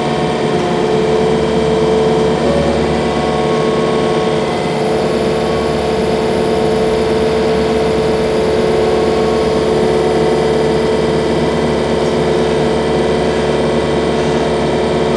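Portable bandsaw mill's engine running at a steady speed, with a constant mid-pitched whine.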